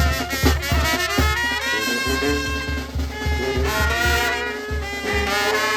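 Brass band playing a huapango: horns carry a wavering melody over a steady beat of bass drum and low brass.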